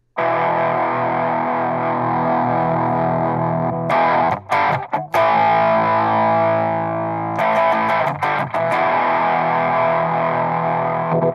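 Electric guitar played through a Source Audio El Raton rat-style distortion pedal: heavily distorted chords strummed and left to ring, restruck with a few quick scratchy strums about four and again about eight seconds in. The sound cuts off suddenly at the end.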